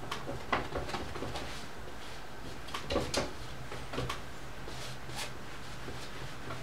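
Irregular light taps and scuffs of a paintbrush working oil paint on a stretched canvas on an easel, with a cluster of louder knocks about three seconds in, over a low steady hum.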